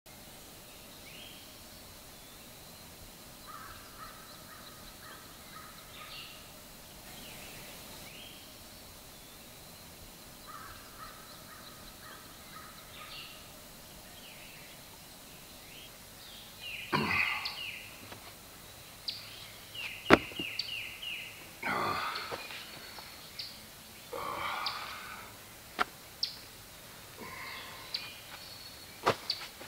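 Woodland ambience of birds calling: faint, repeated calls in the first half, then louder, harsher calls from about halfway, with a few sharp clicks, over a steady high whine.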